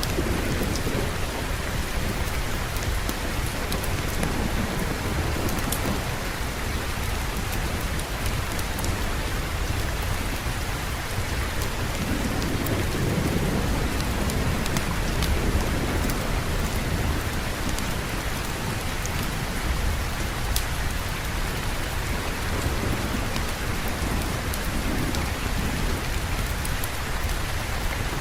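Steady rain falling, with low rolling thunder that swells now and then, most strongly about halfway through, and scattered sharp ticks.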